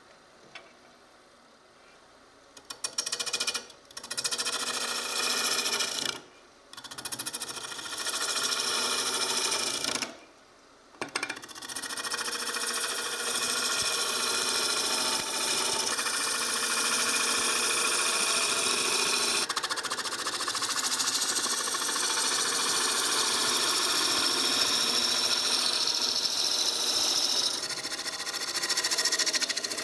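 A gouge cutting into a spinning ash blank on a Robust wood lathe. The cutting starts a few seconds in, stops briefly a few times as the tool is lifted off, then runs steadily.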